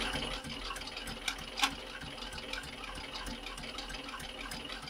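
Industrial roller-foot sewing machine running steadily while stitching leather: a continuous motor whir with a few faint clicks.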